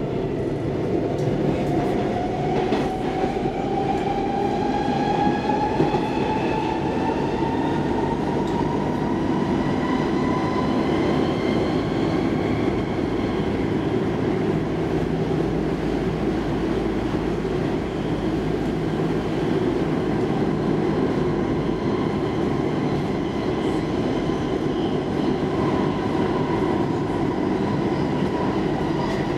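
Stockholm Metro C14 train accelerating away from a station, heard from inside the car. The whine of its electric drive rises in pitch over the first ten seconds or so, then holds steady over the steady rumble of the wheels on the track.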